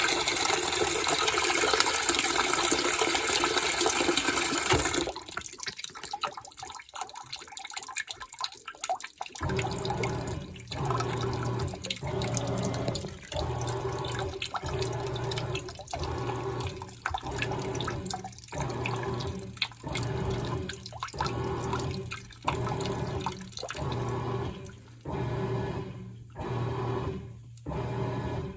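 Crosley top-loading washing machine: water pours into the tub for about five seconds, then stops. After a short lull the agitator starts, its motor humming in short, even strokes a little under one a second.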